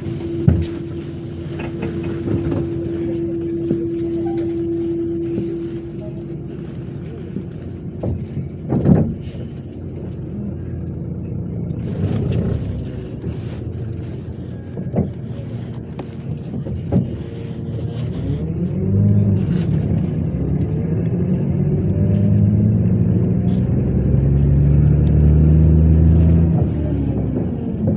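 MAZ 103.562 city bus heard from inside the cabin: the diesel engine idles with a steady whine over the first few seconds and a few knocks and rattles. About two-thirds in the engine revs up as the bus pulls away, its pitch rising and falling.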